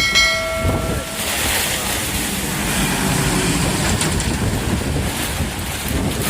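Storm wind and rain, a steady rushing noise with the wind buffeting the microphone. In the first second a brief ringing tone with several overtones sounds and dies away.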